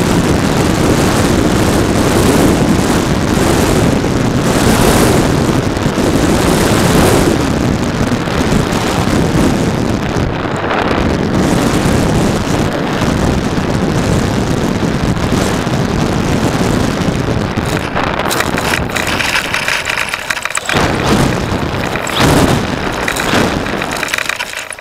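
Wind rushing over the on-board camera of a radio-controlled PT-17 Stearman model biplane in flight, with its motor and propeller running underneath. In the last few seconds the sound turns uneven and then drops away as the model touches down and rolls out on grass.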